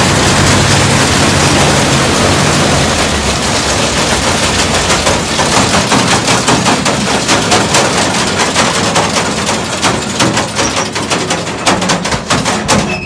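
Combine harvester header running on its first test start after repair, a loud rapid mechanical clatter. About three seconds in the engine hum drops away, and the clatter thins and slows as the machinery runs down toward a stop.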